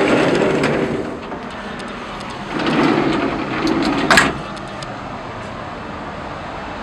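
A ship's heavy steel door opening onto the bridge wing, with a rush of noise and a sharp metallic clank about four seconds in. A steady rush of wind follows.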